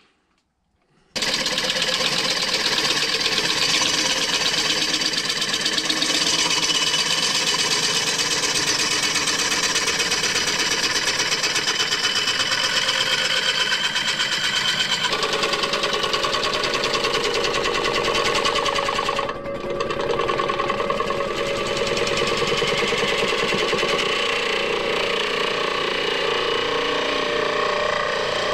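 Gouge cutting into a large apple wood bowl blank spinning on a lathe: a loud, steady rasping cut with a fast, even rattle, starting about a second in. Its tone changes about halfway through, and it eases off briefly about two-thirds of the way through.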